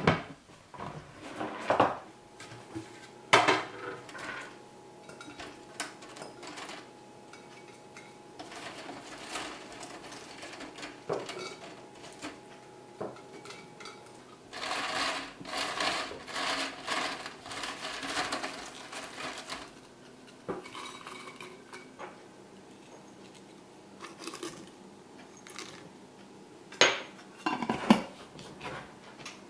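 Hard plastic knocks and clatter of food-dehydrator trays being stacked, then a few seconds of dry, crisp rustling as dried porcini slices are picked off a tray and dropped into a glass jar. A couple of sharp knocks come near the end as the glass jar is handled.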